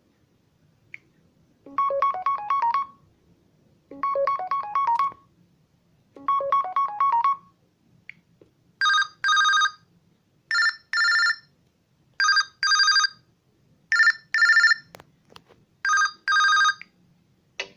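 LG K40s smartphone ringtones. A short rising melodic phrase plays three times, then a pattern of paired electronic beeps repeats five times, about one pair every second and a half to two seconds.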